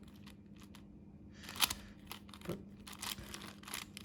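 5x5 Rubik's cube being turned by hand: a run of quick plastic clicks and clacks as its layers are twisted, with one louder clack about a second and a half in and the turns coming faster after that. A faint steady hum runs underneath.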